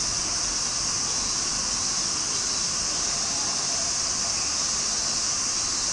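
Steady, even hiss with no other distinct sound.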